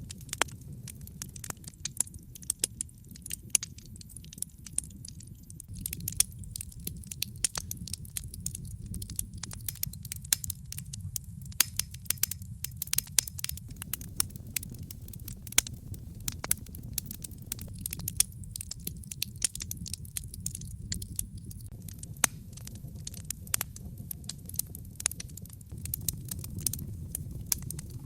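Fire burning in a fireplace, crackling with frequent irregular sharp pops over a steady low rumble of flame.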